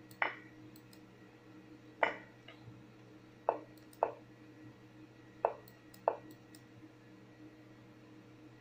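Lichess online chess move sound: six short wooden clicks spread over several seconds, some in quick pairs, as moves are played in a fast endgame. Fainter, sharper mouse clicks come in between.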